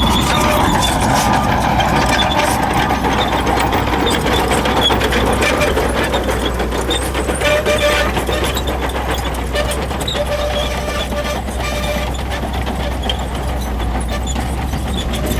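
Shantui bulldozer's diesel engine running steadily with a low rumble, with many quick clicks and clanks over it.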